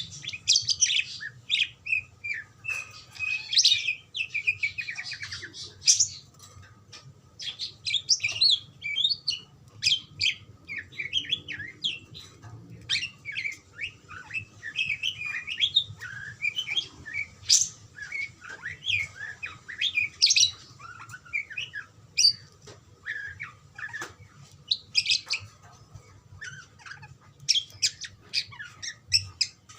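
Budgerigars chirping and chattering back and forth, a continuous stream of short, overlapping warbling calls. A steady low hum lies underneath.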